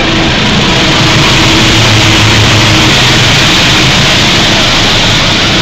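Diesel-electric locomotive passing close by, its engine's low steady drone under loud wheel-on-rail noise. The engine's higher tone drops away about three seconds in as the cab goes past.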